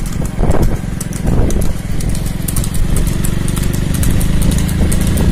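Motorcycle engine running steadily at low road speed, with light clicking ticks over it.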